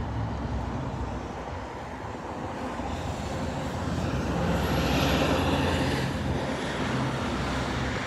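Steady low engine rumble of distant traffic, swelling to a peak about five seconds in with a faint high whine that falls in pitch, then easing off.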